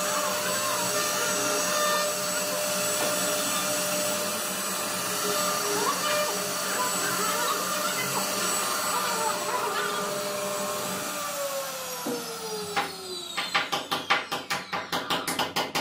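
CNC router spindle running with its bit cutting into a wooden plank: a steady whine over the hiss of the cut. About eleven seconds in, the spindle winds down with a falling whine, and near the end comes a fast run of sharp clicks, about five a second.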